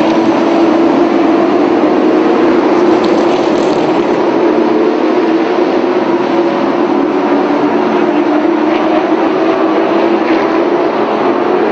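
Late model stock car engines running at racing speed, a loud steady drone as the cars circle the short oval.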